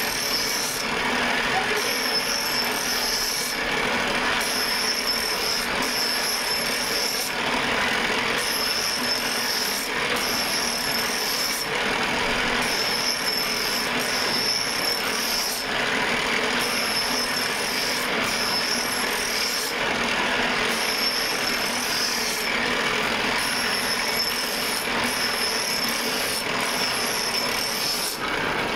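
Scissor blade ground against the spinning stone of a pedal-driven grinding wheel, a continuous harsh scraping and hissing that throws sparks. It comes in repeated passes a few seconds long, with short breaks in the high, hissing part between them.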